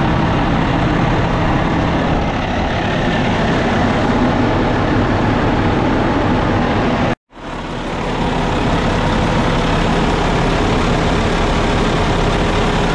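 Cummins ISX15 inline-six turbo diesel running steadily at idle, heard close from under the truck on its first start after a new oil pan and gasket. The sound cuts out for a moment a little past halfway, then carries on the same.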